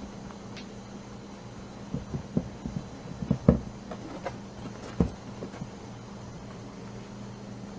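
Baby rabbits gnawing and nudging a carrot on a cardboard box: a run of small crunches and soft knocks in the middle, the loudest two about a second and a half apart, over a steady low hum.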